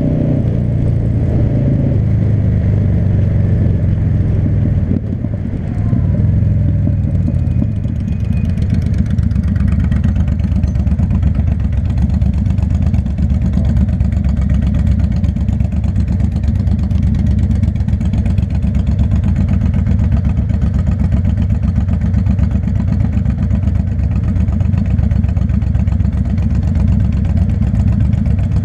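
V-twin cruiser motorcycle engines: running as the bike rolls along and slows for the first several seconds, then idling at a standstill with an even, low pulsing beat for the rest of the time.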